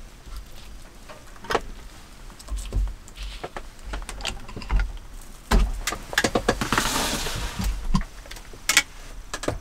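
Kitchen knife and hands at a cutting board: scattered taps and clicks as sliced pork belly is laid into a metal pan and the knife is set down. Then a plastic food bag rustles and crinkles for a couple of seconds, with a last sharp click near the end.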